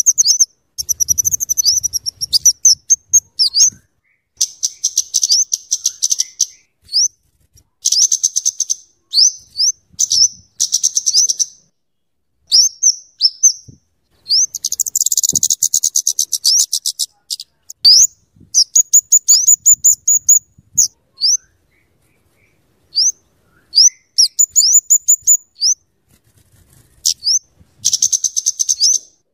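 Kemade (cabe-cabean) flowerpecker calling: high, thin, sharp single notes mixed with rapid buzzing chatter in bursts of about a second, with short silent gaps between them.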